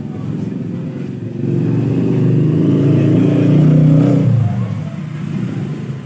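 A motor vehicle's engine passing on the street, swelling to its loudest about three to four seconds in, then fading away.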